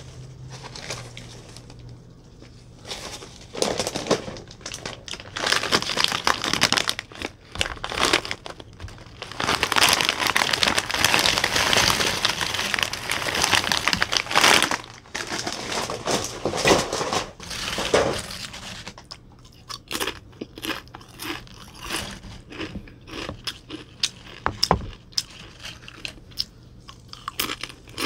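A snack bag crinkling as tortilla chips are poured out of it onto a table, a long run of dense rustling and crackling. After that come scattered sharp crackles as the chips are handled in the pile.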